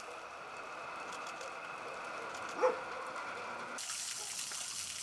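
Water spraying from a garden hose, with a dog giving one short bark about halfway through. Near the end the spray turns to a higher, hissier splashing as the hose plays into a water-filled bathtub around a dog.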